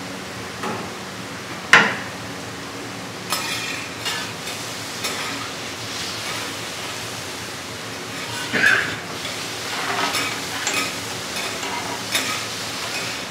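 Scallops and sliced vegetables sizzling on a hot steel teppanyaki griddle while two metal spatulas scrape and clack against the plate. A sharp clack of metal comes about two seconds in, and scraping strokes follow several times.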